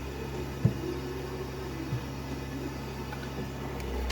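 Compressed air from a leak-down tester escaping past the piston rings into the crankcase, heard as a faint steady hiss over a steady low hum. There are a couple of light knocks. The air blowing into the oil pan points to leakage past the rings.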